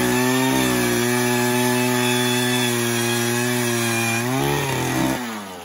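Gas-powered ice auger engine running steadily as the auger bores into lake ice. About four and a half seconds in its pitch rises briefly, then falls as the engine slows.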